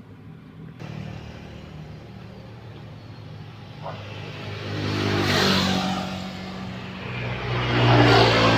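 Motor vehicle running, with a steady low hum that swells louder twice, about halfway through and again near the end, as if passing close by.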